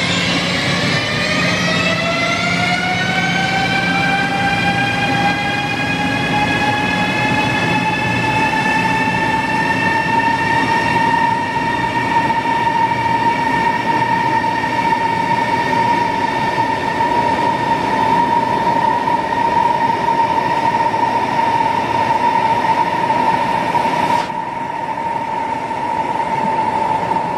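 Siemens Velaro CRH3C high-speed electric train pulling away, its electric drive whine rising in pitch for the first few seconds as it accelerates, then holding a steady tone over the rush of the passing cars. Near the end the hiss thins out suddenly.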